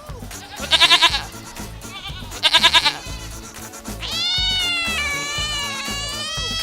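A goat bleating twice in short quavering calls, then a long drawn-out cat meow starting about four seconds in, over background music with a steady beat.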